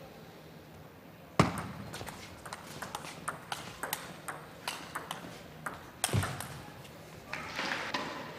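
Table tennis ball clicking off bats and table: a sharp crack about a second and a half in, then a quick run of light ticks, roughly three a second, and another sharp crack about six seconds in. A brief rush of noise follows near the end.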